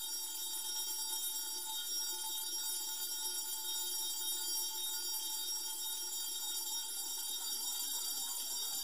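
Steady electronic drone of several sustained high tones, unchanging throughout, with no beat or voice.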